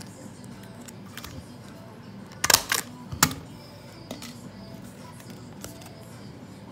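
Folded paper slips rustling and crinkling as a hand stirs them in a bowl and pulls one out to unfold it, with short sharp crinkles throughout and the loudest cluster about two and a half to three seconds in.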